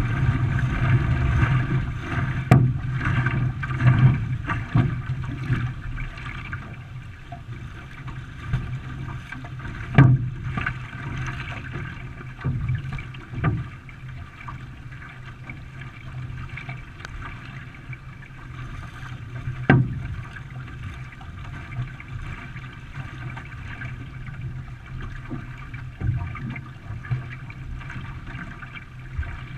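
Canoe paddles stroking and splashing through river water as racing canoes pull away from a race start. It is louder in the first few seconds, then settles into a steadier wash, with a few sharp knocks, likely paddle shafts striking the hull.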